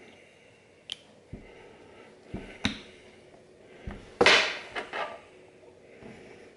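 Small metal and plastic parts being handled and set down on a desk: a series of light clicks and knocks, with the loudest clatter about four seconds in, followed by two smaller knocks.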